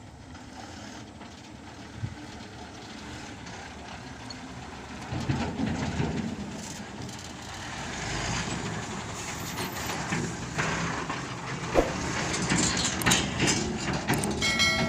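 Heavy diesel machinery running, growing louder about five seconds in, with scattered metal clanks and knocks in the second half.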